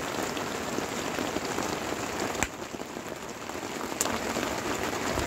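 Heavy rain falling steadily, with two sharp clicks, one about two and a half seconds in and another about four seconds in.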